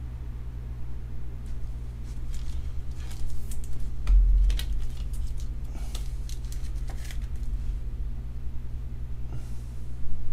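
Scratchy plastic clicks and scrapes as a trading card is handled and slid into a clear rigid plastic card holder, with a dull bump about four seconds in. A steady low hum runs underneath.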